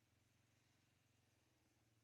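Near silence, with only a faint low, steady, pulsing hum.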